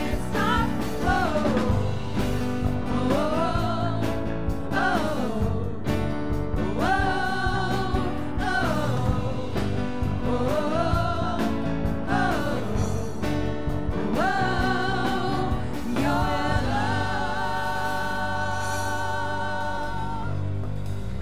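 Worship team of several voices singing a gospel-style worship song into microphones, backed by instrumental accompaniment. Sung phrases rise and fall, then near the end the voices hold one long note with vibrato before the music eases off.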